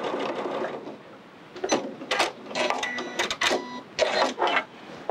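Elna sewing machine stitching steadily, stopping about a second in, followed by a run of sharp mechanical clicks and clatters.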